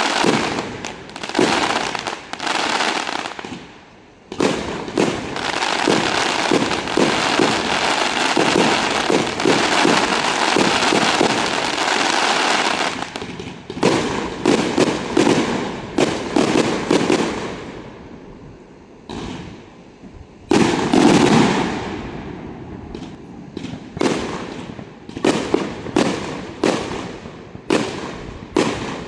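Aerial fireworks show: many sharp bursts and long stretches of dense crackling barrages, easing off for a moment after about 18 seconds, then a loud bang and a run of separate booms near the end.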